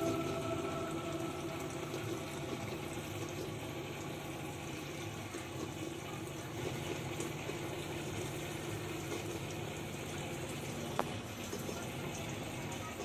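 Water trickling and splashing steadily from a small homemade cement water fountain. There is a single click about eleven seconds in.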